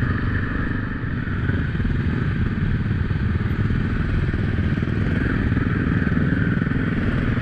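Dirt bike engine running steadily at low speed, heard close up from the rider's own bike while it rolls along a dirt track.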